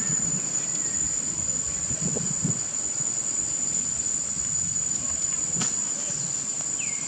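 Insects droning in the trees: one steady, unbroken high-pitched tone that holds throughout, over a low outdoor background. A short falling chirp comes near the end.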